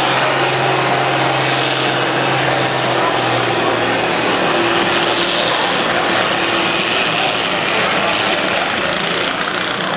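A stock-class farm tractor's engine running hard under load as it pulls the weight sled down the track. A steady low hum holds for the first three or four seconds, then gives way to a broader, even noise.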